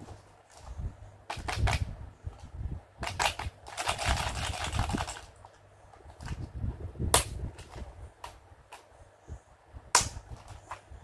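Clicks and knocks of a clear plastic compartment case of doll accessories and beads being picked up and handled, with about a second of rattling a few seconds in. Two sharp plastic clicks, past the middle and near the end, are the loudest.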